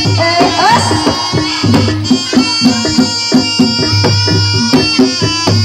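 Javanese jaranan music: regular hand-drum strikes under an ensemble of sustained high melodic tones, playing on without a break.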